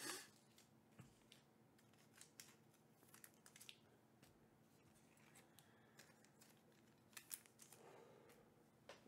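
Faint handling of trading cards: light ticks and short swishes as cards are picked up, slid and set down on a tabletop, with a sharper click at the start and another about seven seconds in.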